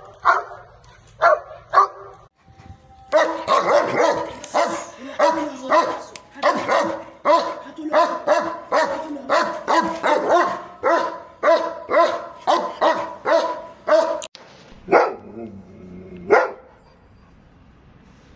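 German Shepherd dogs barking in a guard-dog display. The barks come in quick runs of about two a second through most of the stretch, with a last couple of barks and then quiet near the end.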